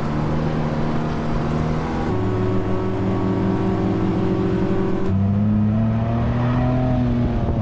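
Off-road vehicle engines running at fairly steady revs while driving over sand dunes. The pitch jumps abruptly about two and five seconds in as the sound shifts from the Suzuki Samurai's cab to another 4x4 heard from outside.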